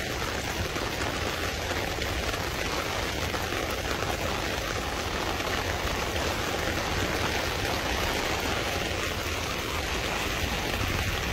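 Rain falling steadily, an even hiss that holds at one level throughout.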